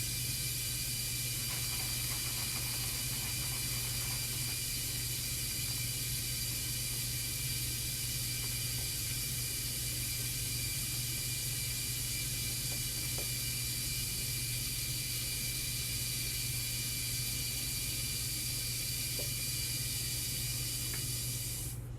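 Tap water running steadily into a sink, shut off suddenly near the end.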